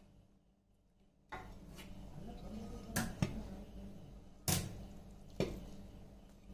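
A perforated metal serving spoon scooping rice out of a large metal pot and tipping it onto a ceramic plate. A rustling scrape starts after about a second, and the spoon gives four sharp clinks against the pot and plate.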